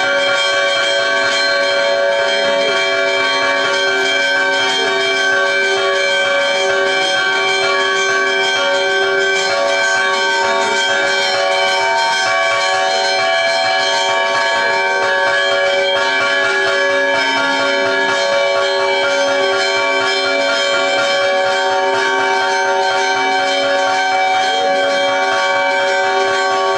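Church bells ringing without a break, many overlapping bell tones sounding together at a steady level.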